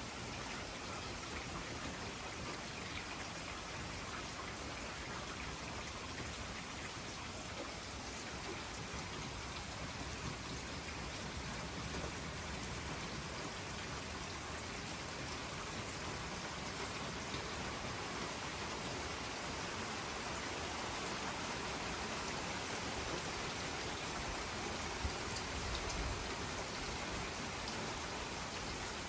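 Steady rain from a thunderstorm, an even hiss with fine scattered drop ticks.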